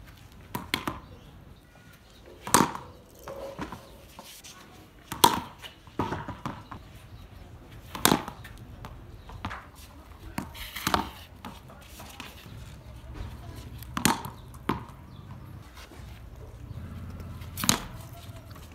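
Wooden cricket bat striking a thrown ball: a sharp knock every two to three seconds.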